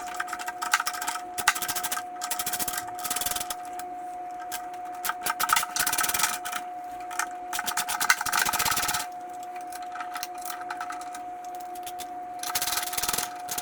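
A screwdriver backing out small Torx screws, heard as repeated bursts of rapid clicking about a second long, over a steady high tone.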